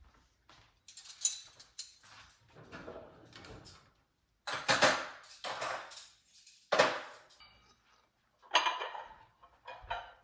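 Dishes and utensils being handled, a string of irregular clatters, knocks and clinks.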